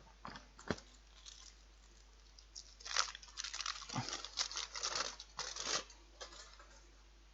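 Small chocolate-bar wrappers crinkling and tearing as they are handled and opened: a few brief crackles near the start, then a busier stretch of rustling from about three to six seconds in.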